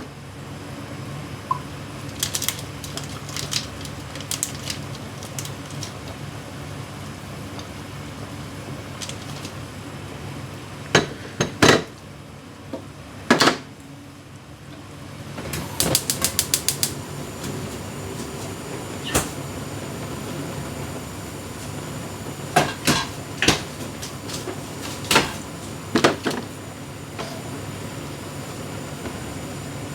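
Pans, utensils and dishes being handled during cooking: scattered knocks and clatters over a steady hum, with a quick run of about ten clicks around the middle.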